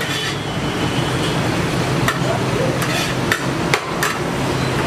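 Metal serving spoon scraping and clinking against a large steel tray of rice, with a run of sharp knocks in the second half.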